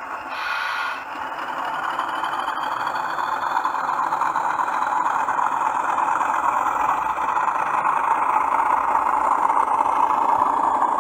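Hornby TTS sound-fitted Class 40 model locomotive playing its diesel engine sound through a newly fitted, larger speaker, growing steadily louder as the loco runs toward and past. A brief higher sound about half a second in.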